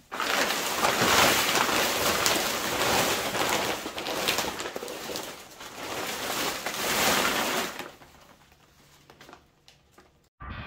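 Crinkling and rustling of an Airush Freewing Air V2 wing's nylon canopy and clear plastic windows as the deflated wing is lifted and gathered up by hand. The rustle is loud and uneven for about eight seconds, then drops to a few faint handling ticks.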